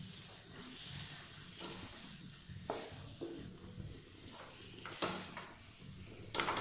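Wooden spatula stirring and scraping thick semolina and gram-flour halwa around a non-stick frying pan, in a few irregular strokes, over a soft steady sizzle from the hot fat in the pan.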